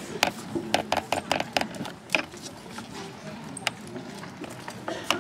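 Rattan swords striking shields and armour in SCA armoured combat: a quick run of sharp knocks in the first second and a half, then single blows spaced a second or more apart.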